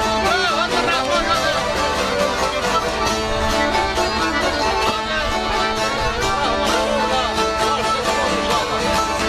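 Albanian folk band playing an instrumental passage: violin melody with vibrato over accordion and strummed çifteli (long-necked two-string lutes), with a steady beat.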